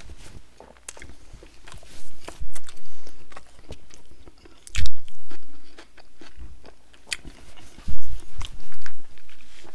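Close-miked mouth sounds of a person chewing food: wet smacks and sharp clicks at irregular intervals, the loudest about five and eight seconds in.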